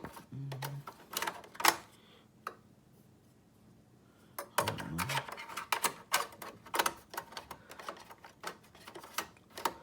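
Irregular clicks and taps of small parts and covers being handled and fitted by hand into an HP 8200 All-in-One PC. The clicks pause for about two seconds a little before the middle, then come quicker and closer together.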